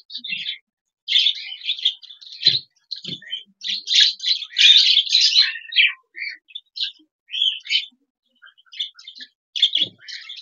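Budgerigars chattering in quick, irregular high chirps, busiest about four to six seconds in and thinning out after, with a few faint low taps.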